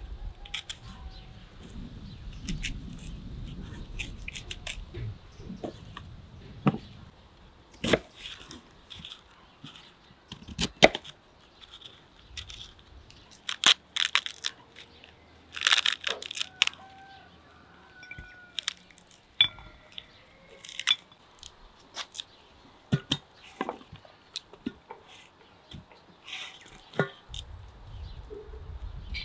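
A knife crunching through a firm quince, then a ripe pomegranate being broken apart by hand, its rind cracking and tearing in sharp snaps. Near the end, softer crackles as the seeds are picked out.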